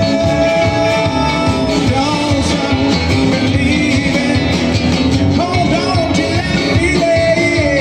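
Live country band playing amplified: electric and acoustic guitars, bass and drums, with a held melody line over a steady beat.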